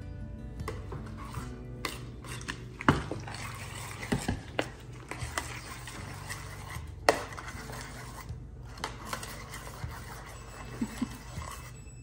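A metal spoon stirring yogurt into chopped onion in a stainless steel tray, with irregular scrapes and clinks against the metal. The loudest clinks come about 3 and 7 seconds in. Soft background music plays underneath.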